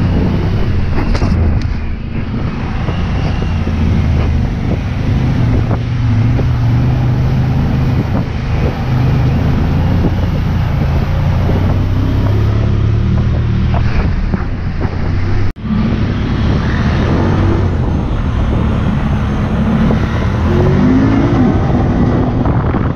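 Off-road vehicle engines (ATVs and side-by-sides) running steadily while driving a muddy trail, with a short break in the sound about two-thirds through.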